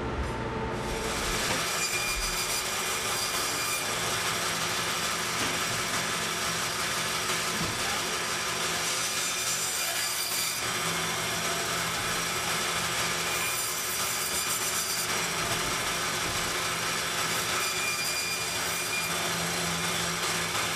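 Meat band saw running steadily and cutting through bone-in lamb rib racks. The saw noise starts about a second in.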